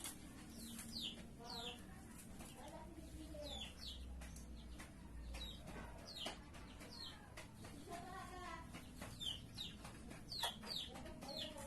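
Faint domestic chickens clucking, with many short high chirps falling in pitch, coming irregularly about once or twice a second, and a few lower clucks.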